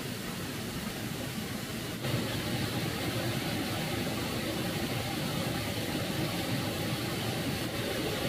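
Shallow stream water running over pebbles, a steady rushing that gets louder about two seconds in.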